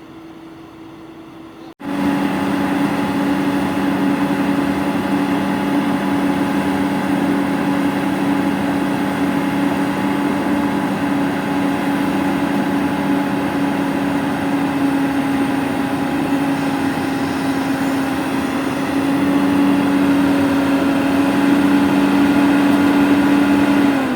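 Excavator's diesel engine running steadily and loud, close by, with a steady low drone. It cuts in abruptly about two seconds in, over a quieter engine hum, and grows a little louder about nineteen seconds in.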